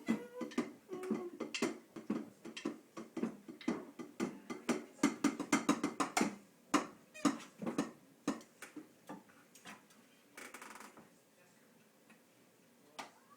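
Electronic drum kit pads struck irregularly, with no steady beat: a busy run of hits that thins out to scattered single strikes in the second half.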